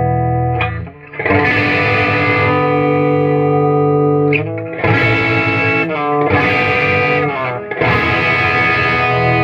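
Electric guitar through a tube amp's bright and normal channels run together, with light overdrive. A series of ringing chords are struck and held, changing about every one to three seconds.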